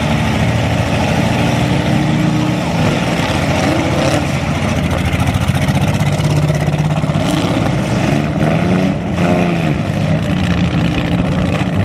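Several compact cars' engines running and revving hard in a demolition derby, pitch rising and falling, with a few sharp knocks.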